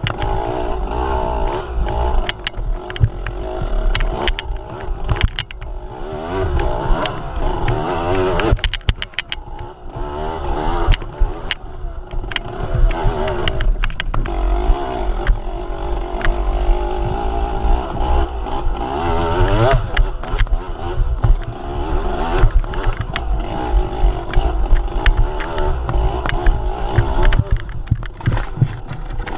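Motor vehicle engine running under a steady low rumble, its pitch wavering up and down with changing revs, rising clearly about twenty seconds in.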